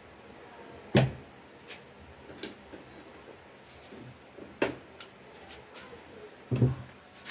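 Metal clicks of an old tailgate gas strut on a Suzuki Ertiga being pried off its ball-joint mounts: one sharp click about a second in, then a few lighter clicks, and a dull knock near the end.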